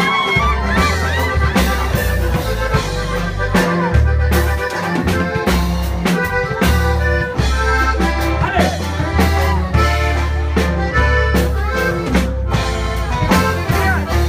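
Live band playing an instrumental passage with a steady bass line and regular drum beats.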